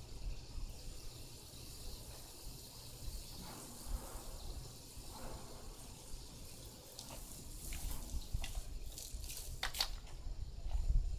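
Water spraying from a garden hose, a faint steady hiss of spray, with a few sharp clicks near the end.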